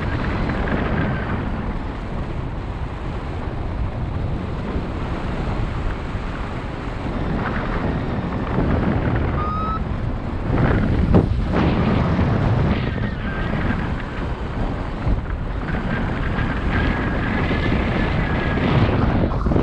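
Wind rushing and buffeting over the microphone of a camera on a paraglider in flight, steady with gusty swells; a faint thin whistle-like tone comes and goes over it.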